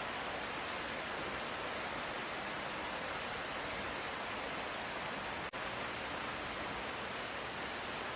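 Steady light rain, an even hiss with no thunder, with a momentary drop in level about five and a half seconds in.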